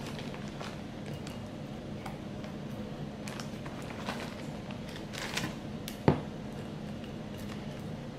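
Rustling of a plastic zip-top bag and soft clicks of sticky cottonwood buds dropping into a glass mason jar as they are packed in by hand, with one sharper tap about six seconds in. A steady low hum sits underneath.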